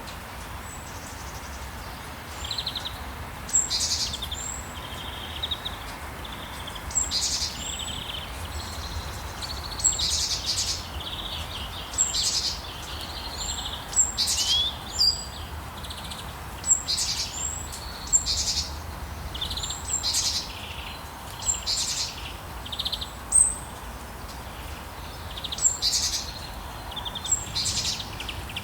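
Songbirds chirping and singing in short, repeated phrases every second or two, over a steady hiss of rain and a low rumble of town background.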